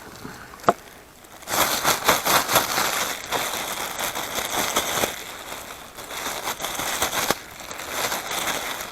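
Plastic bag crinkling and rustling as it is handled, with flour and burbot pieces inside. It starts about a second and a half in and is loudest for the next few seconds.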